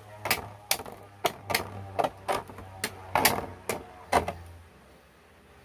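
Infinity Nado spinning top spinning in a plastic stadium bowl: a low steady hum with sharp clicks about twice a second as the top knocks against the plastic. Both stop a little after four seconds in.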